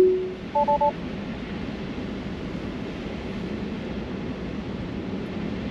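A Tesla's cabin alert chime, one tone stepping up in pitch and fading at the very start, then three quick two-tone beeps just under a second in. After that comes steady road and tyre noise inside the moving car's cabin.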